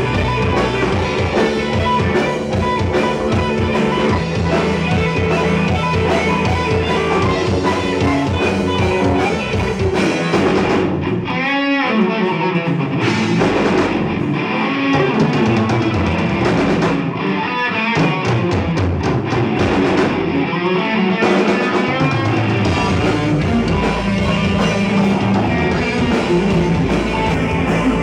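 Live rock band playing: electric guitar over drum kit and bass guitar. About eleven seconds in, and again around seventeen to twenty-one seconds, the drums and bass briefly drop back while the guitar carries on with wavering, bent notes.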